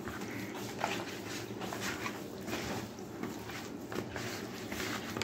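Soft, wet squishing and rubbing of raw chicken pieces being kneaded by hand with salt and black pepper in a plastic bowl: a faint, irregular run of small squelches.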